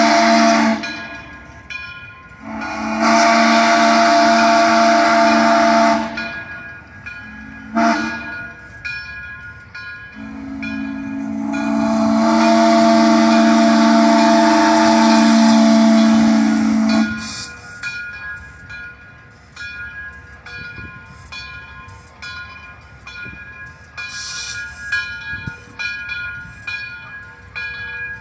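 Steam whistle of Frisco 2-10-0 locomotive No. 1630 blowing the grade-crossing signal: the tail of one blast, a long blast, a short one, then a long one held about seven seconds. After it, fainter evenly repeating ringing, typical of the locomotive's bell, over a light steam hiss as it approaches the crossing.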